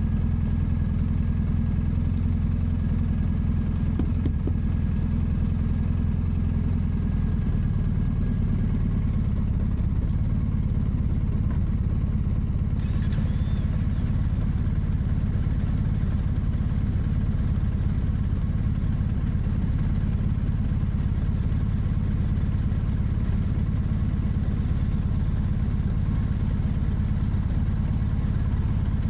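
Motorcycle engine idling steadily, its low note shifting slightly about seven seconds in.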